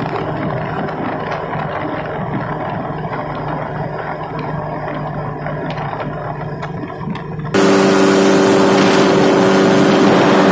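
Paramotor engine running steadily in flight, a droning hum with a hiss over it. About two-thirds of the way through the sound jumps abruptly louder and hissier, the engine's hum stronger.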